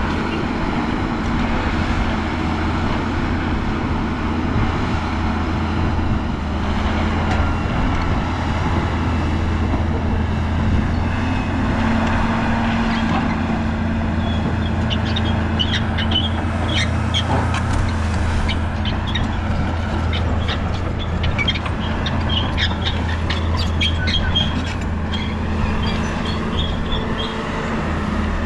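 Excavator diesel engine running steadily under work. From about halfway through, many short, sharp clicks and squeaks sound over it.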